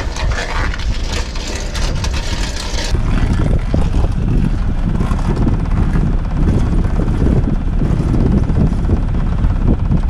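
Wind buffeting the microphone aboard a small sailboat, with its motor running underneath. For about the first three seconds a hissy rustle sits over it, then the sound changes abruptly to a heavier, fluttering low rumble.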